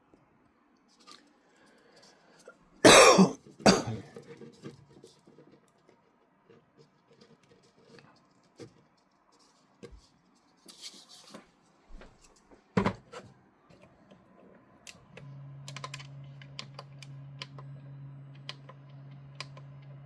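Knocks and clicks of hard objects being handled, with two loud knocks about three seconds in and another near thirteen seconds. About fifteen seconds in, a steady low hum starts.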